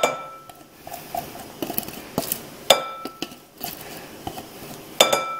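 A spatula knocking against the rim of a blender cup three times, each knock ringing briefly, with softer clicks of scraping in between as thick mushroom pâté is scraped out into a bowl.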